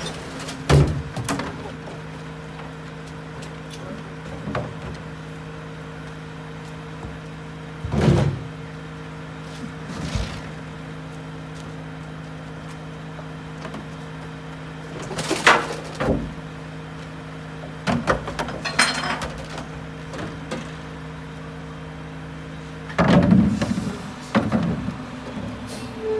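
Heil split rear loader garbage truck standing with its engine running in a steady hum, while recycling bins are tipped into its hopper: bangs and clatter of bins and loose recyclables every few seconds, loudest near the end.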